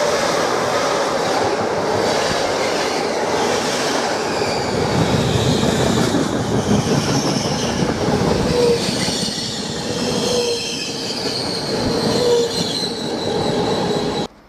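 Trenitalia E402A electric locomotive and its InterCity coaches running past along the platform: a steady rolling rumble of wheels on rail with high-pitched wheel squeal. It cuts off abruptly near the end.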